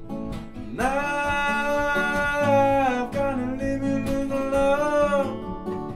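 Acoustic guitars strumming chords. About a second in, a long held melody note comes in over them, wavers slightly in pitch and fades shortly before the end.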